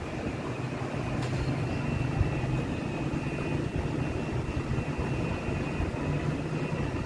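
Steady low mechanical hum and rumble, with a faint click about a second in.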